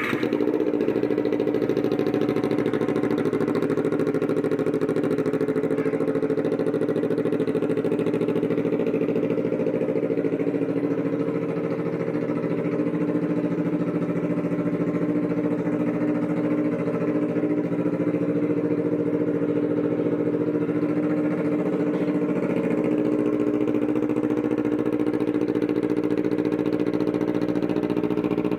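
Kawasaki Ninja 250 parallel-twin engine idling steadily through an aftermarket TOCE twin-outlet slip-on muffler, with a loud, aggressive exhaust note.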